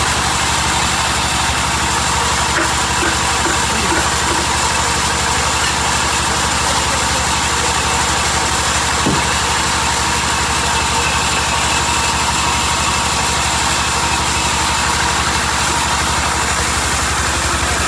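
Sawmill machinery running steadily, an engine-like drone with an even, fast pulse and a steady higher tone over it.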